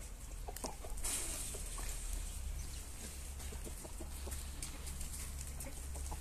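Aseel chickens clucking, short scattered clucks, with a brief rustling hiss about a second in and a steady low rumble underneath.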